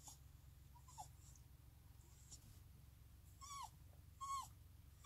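A dog whining twice near the end, each whine short and falling in pitch, with a fainter whimper about a second in. It is a dog restless to go out and play. A steady low hum runs underneath.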